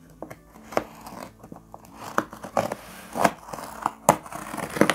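A knife blade slitting packing tape along a cardboard shipping carton: scraping and tearing with sharp crackles and snaps, busier and louder from about two seconds in.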